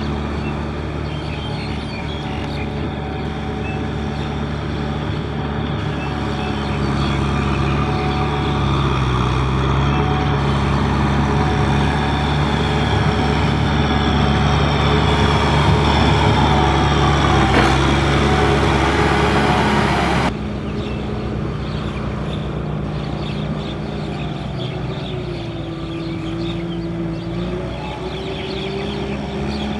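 Tractor diesel engine running steadily, growing louder partway through, then dropping suddenly about two-thirds of the way in.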